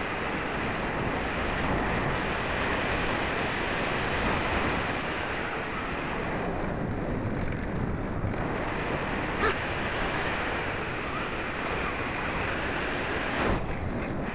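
Airflow rushing over the microphone of a wing-mounted keychain camera on an RC glider in flight: a steady hiss of wind noise that thins out for a couple of seconds in the middle.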